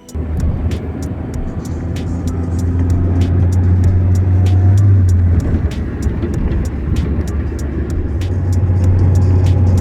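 Car driving: a steady low engine and road rumble, growing a little louder through the middle.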